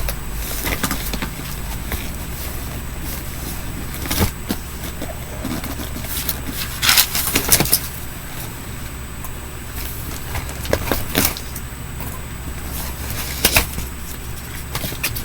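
Plastic fidget toys being handled and pulled out of a pile: scattered clicks, rattles and rustles, with short bursts of clatter about four, seven, eleven and thirteen seconds in. A steady low hum runs underneath.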